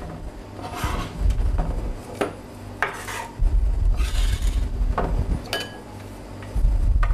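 A kitchen knife scraping chopped juniper berries off a chopping board into a glass bowl of grated beetroot and salt-sugar cure, in several separate scraping strokes with a few light clicks of the blade and dull knocks on the counter.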